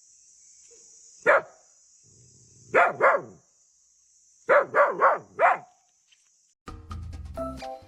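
Dog barking: seven short barks, first one alone, then a pair, then four in quick succession. Music comes in near the end.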